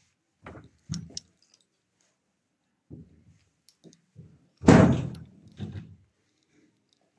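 Heavy wooden door knocking and thudding: several light knocks, then one loud thud a little over halfway through that rings out briefly, and a softer knock after it.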